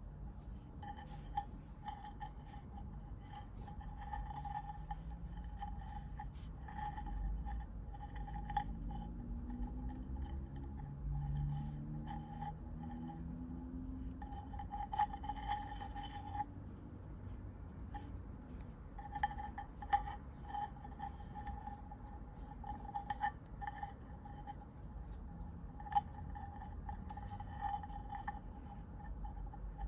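Glass seed beads of a beaded kaleidocycle clicking and rubbing against each other as the piece is folded and rotated by hand, in scattered runs of small clicks, over a faint steady hum.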